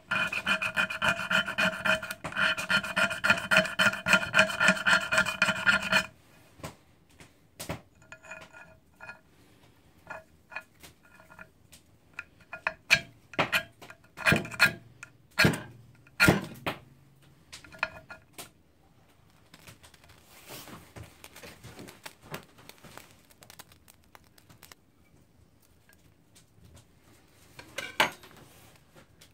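Steel striker scraping a magnesium fire-starter block in rapid, rhythmic strokes with a ringing squeal for about six seconds, shaving off magnesium. Then a string of separate sharp scrapes along the block's ferrocerium rod, striking sparks into the tinder.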